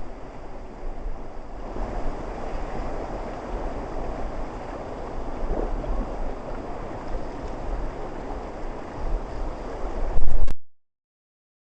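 River water rushing around a drifting raft, with wind buffeting the microphone as a low rumble that swells loudly just after ten seconds in. The sound then cuts off abruptly to silence.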